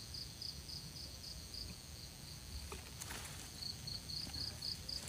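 An insect chirping in short pulses at one high pitch, about four a second, falling silent for about two seconds mid-way and then starting again. A brief rustle about three seconds in.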